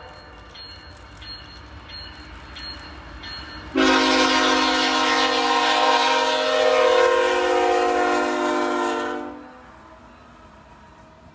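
A diesel locomotive's multi-note air horn sounds one long blast of about five seconds, starting suddenly about four seconds in. Before it, a train runs by with faint regular dings about every half second; after it, a low rumble of the passing train remains.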